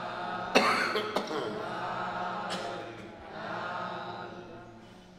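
An elderly man coughing into his hand, with two sharp coughs about a second in and a third about halfway through, and throat clearing between them.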